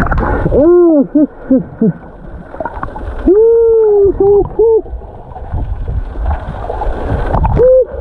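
A snorkeler's voice calling out through the snorkel underwater, muffled into hoot-like exclamations that rise and fall in pitch ("there's so much fish"). They come in a quick run of four, then one long and two short, and once more near the end, over the low rush and gurgle of water.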